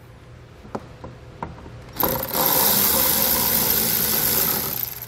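Milwaukee cordless ratchet with a 10 mm socket backing out a plastic 10 mm hex-head bolt. A few light clicks come as the socket is seated, then about two seconds in the ratchet's motor runs with a steady whirr for about three seconds and stops.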